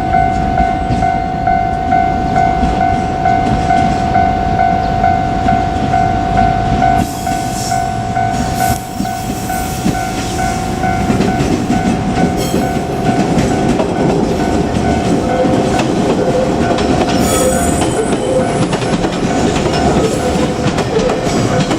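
Level-crossing warning bell ringing in an even, repeating ding. From about seven seconds in, a JR Kyushu 817 series electric train comes through the crossing with growing rail noise, clatter and some wheel squeal.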